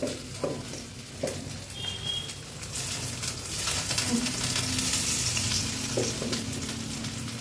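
Marinated small fish sizzling as they shallow-fry in hot oil in an iron kadai. The sizzle grows fuller about three seconds in as more pieces are laid into the oil, with a couple of light knocks in the first second or so.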